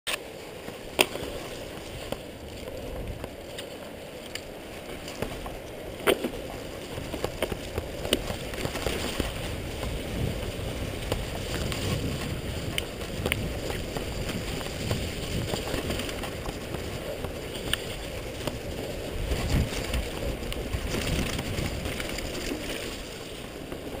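Mountain bike rolling down a rough dirt and grass trail: steady tyre rumble and wind on the microphone, with a few sharp knocks and rattles from the bike over bumps.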